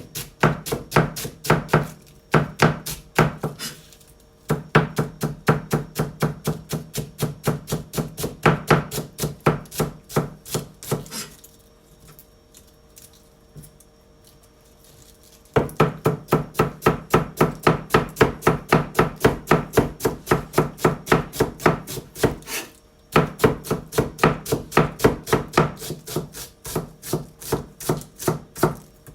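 Kitchen knife finely shredding cabbage on a cutting board: quick, steady strokes several times a second, each ending in a knock of the blade on the board. The cutting stops for about four seconds around the middle, then starts again at the same pace.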